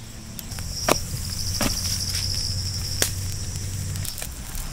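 Insect chirring: a steady, high, finely pulsing trill that starts about half a second in, over a low hum, with three sharp clicks.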